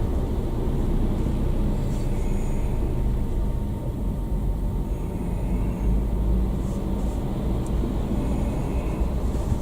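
Steady low engine and road rumble of a car being driven, heard from inside the cabin.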